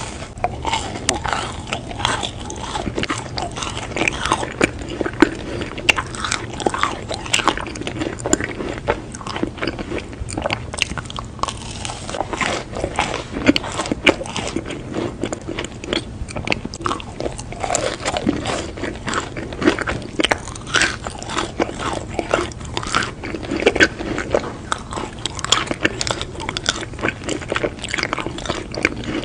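Biting into and chewing a macaron, with a dense run of crisp crunches and wet chewing sounds.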